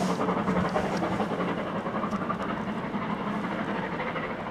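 Bulleid light pacific steam locomotive 34059 working its train away, a steady mix of exhaust and running noise that slowly fades.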